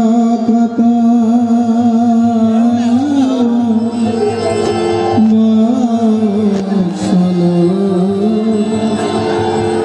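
Background music: a voice singing long held notes that slide slowly from pitch to pitch, in the style of an Indian devotional song.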